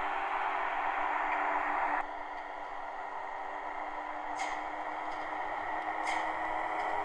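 Model electric locomotive running on a layout track: a steady hum and rolling noise that drops abruptly about two seconds in, with two sharp clicks later on.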